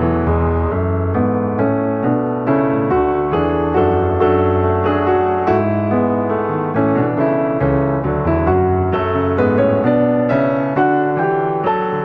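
Background piano music: a steady flow of notes over changing low bass notes.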